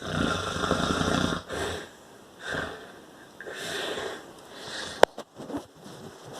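A person snoring: one long, loud snore lasting about a second and a half, then several shorter, breathier wheezing breaths. There is a sharp click about five seconds in.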